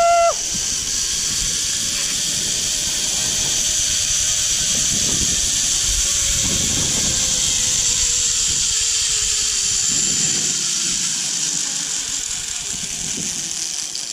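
Zipline trolley pulleys running along a steel cable: a steady hiss, with a faint whine that slowly falls in pitch as the rider slows, fading near the end. A short rising whistle-like note sounds right at the start.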